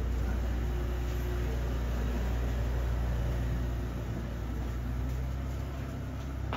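A low, steady engine rumble that eases off near the end.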